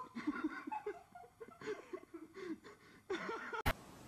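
A person laughing in short, broken giggles. A sharp click comes near the end, and then only faint hiss.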